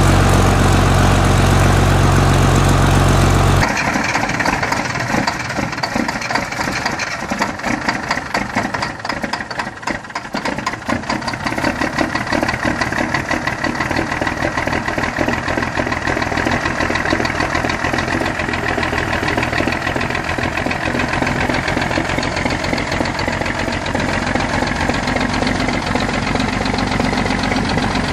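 A 1962 Mack B-61's diesel engine idling with a deep, steady rumble for the first few seconds. Then a different big diesel on a Mack Model R tub-grinder rig runs with a fast, knocking clatter, dipping in loudness briefly around ten seconds in before settling to a steady run.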